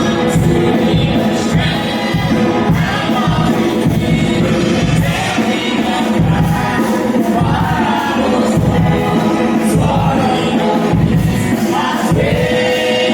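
Gospel worship music: a choir singing over a band with a steady beat.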